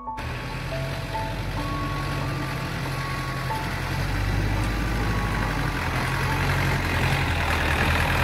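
Electronic dance music: a simple melody of single held notes over a steady bass, under a rising hiss that starts abruptly and grows steadily louder.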